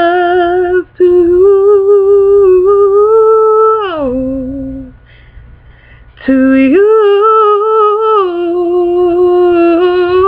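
A woman humming a slow, wordless melody in long held notes. The notes slide down about four seconds in, the voice drops away for a couple of seconds, then comes back on a rising note.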